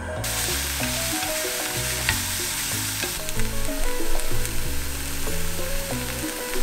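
Instant ramen noodles, sliced green onion and garlic oyster sauce sizzling steadily as they are stir-fried in a hot wok with a wooden spatula. The sizzle comes in suddenly at the start.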